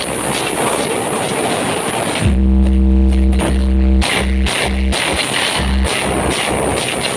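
Loud, bass-heavy music played over a sound system during a sound check: a dense, busy passage, then from about two seconds in deep, held bass notes that cut in and out.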